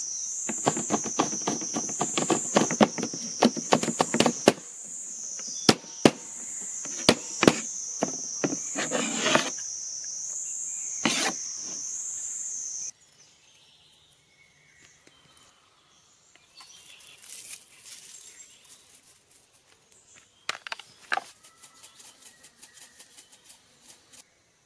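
Knife chopping on a wooden cutting board in quick, uneven strokes for about ten seconds, over a steady, high insect drone. Both stop about halfway through, the drone cutting off abruptly, and only a few faint clicks and taps follow.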